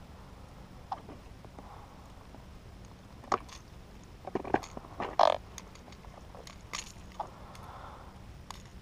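Long metal forceps unhooking a lure from a small pike's mouth: scattered sharp clicks and scrapes of metal on the hooks, the loudest about five seconds in.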